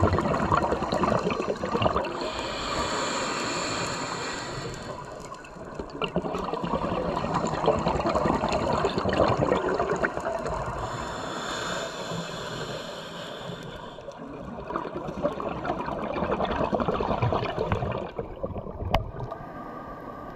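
Scuba breathing through a regulator, heard underwater: a hiss of inhaling through the demand valve, then a long bubbling rush of exhaled air, twice over.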